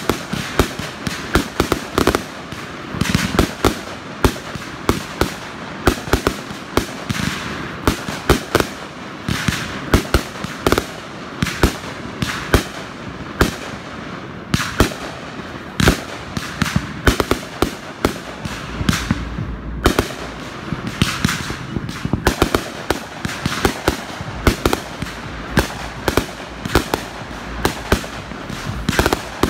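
Aerial fireworks bursting overhead in a continuous barrage: sharp bangs several times a second over a constant crackle.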